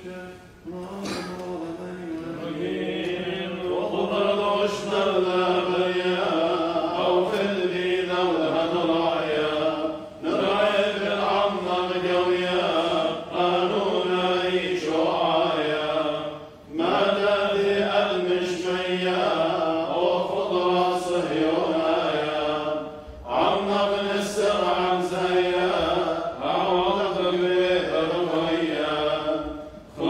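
Clergy chanting the liturgy in unaccompanied sung phrases, with brief pauses between phrases.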